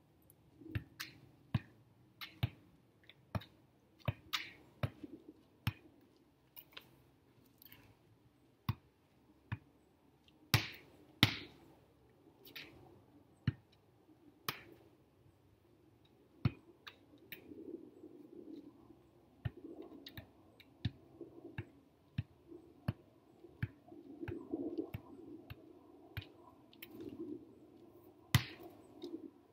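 A volleyball being bumped and set repeatedly off bare forearms and hands: a string of short, sharp slaps at uneven intervals, about one or two a second, with a few much louder hits.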